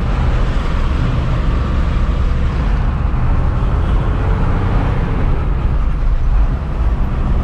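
Truck engine running and road noise heard inside the cab while driving: a steady low rumble.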